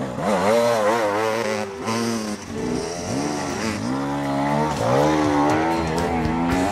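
Enduro dirt bike engines revving hard, the pitch rising and falling with throttle and gear changes as two bikes pass in turn.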